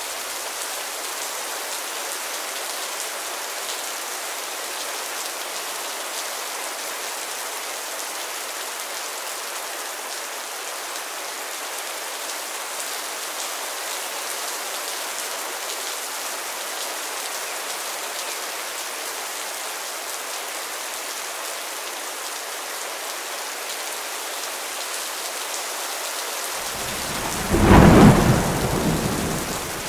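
Steady rain falling, with a loud clap of thunder near the end that rumbles away over a couple of seconds.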